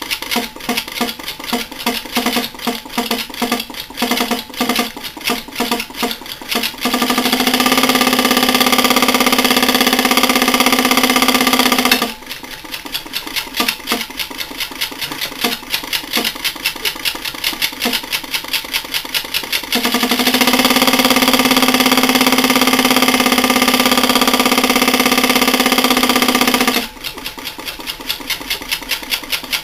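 Oil-starved Bulkon hermetic refrigerant compressor running with its discharge blocked, knocking rapidly. The knocking twice gives way to a louder, steady pitched drone lasting several seconds before it returns. It is being run dry to destruction and is in its death throes.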